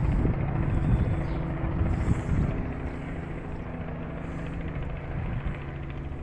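Steady low drone of an engine, with wind buffeting the microphone in the first second or so.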